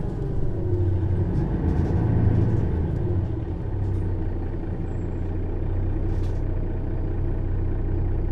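Mercedes-Benz O 530 Citaro bus's engine running with a steady low drone, with a few faint ticks.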